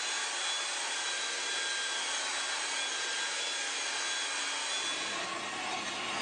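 Handheld belt sander running and sanding the face of an oak cutting board: a steady rushing noise with a faint high whine. About five seconds in the sound fills out lower as the sanding bites harder.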